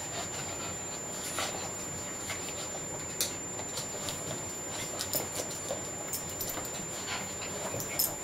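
Puppies scuffling in play, with scattered short clicks and taps throughout.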